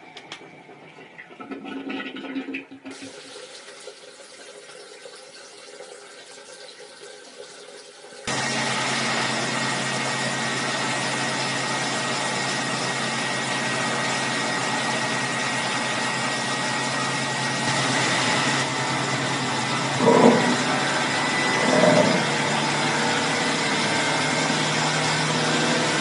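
1970s Hoovermatic De-Luxe T5004 twin-tub washing machine running: after a quieter stretch, from about eight seconds in comes loud, steady churning of water in the wash tub over a steady motor hum, with two brief louder swells near the end.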